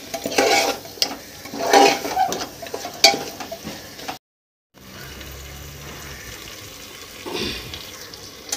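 Metal spoon stirring and scraping chunks of marinated mutton through masala frying in an aluminium pressure cooker, about one scraping stroke a second with small clinks against the pot. The sound cuts out briefly a little past halfway, then the pot sizzles more quietly with one more scrape near the end.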